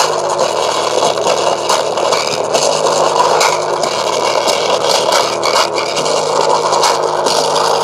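Music played loud through the sound system of a miniature VW Beetle model, coming out as a dense, distorted noise with only faint steady bass notes.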